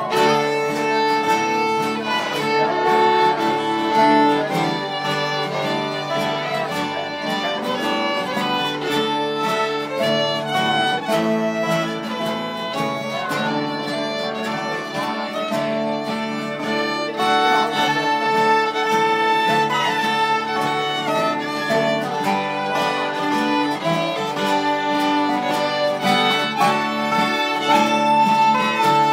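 Fiddle and acoustic guitar playing a tune together: the fiddle carries the melody in bowed notes over the guitar's chords, picked with a plectrum, without a break.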